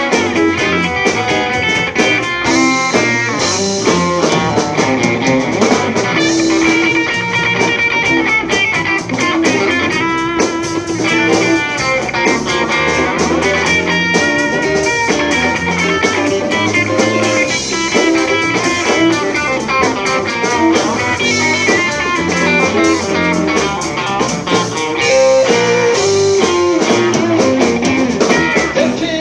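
Live blues-rock band playing an instrumental passage: electric guitars over a drum kit.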